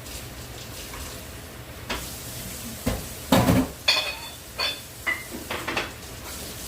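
A metal spoon stirring chicken pieces in a cooking pot over a steady sizzle. About two seconds in, a run of clanks and ringing clinks starts as the spoon strikes the pot, loudest around the middle.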